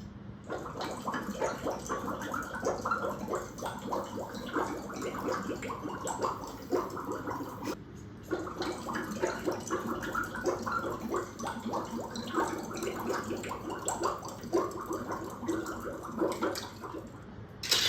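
Gurgling, bubbling water-like sound made of dense irregular pops, breaking off briefly about eight seconds in and then starting again.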